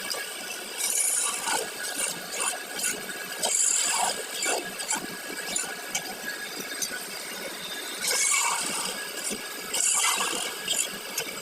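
Hand tool scraping and rubbing in irregular strokes, with scattered light ticks between them.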